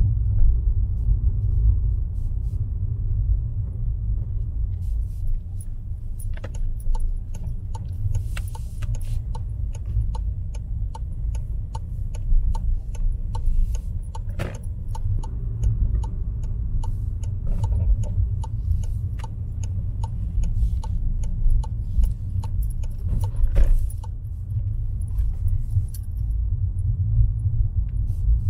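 Car cabin noise from a car driving on a road: a steady low rumble of road and engine noise. From about six seconds in until near the end, a run of light, quick rattling clicks sounds over it.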